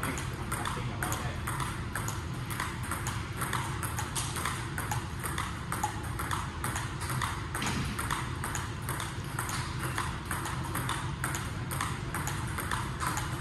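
Table tennis multiball practice: plastic balls clicking off rackets and the table in a quick, even rhythm of about three hits a second, over a steady low hum.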